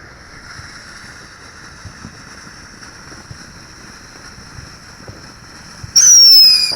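TNT Pink Ice firework fountain hissing steadily as it burns. About six seconds in, a very loud whistle from the fountain comes in, falling slightly in pitch over under a second.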